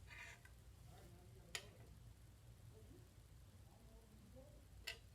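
Near silence: room tone with a low hum and two faint clicks about three seconds apart.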